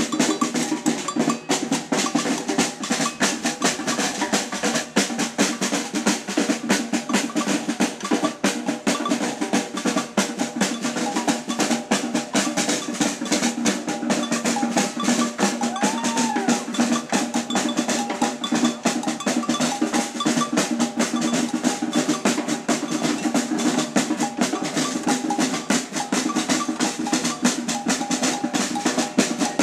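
Samba batucada drum section playing a steady, dense groove: surdo bass drums and snare drums struck together without a break.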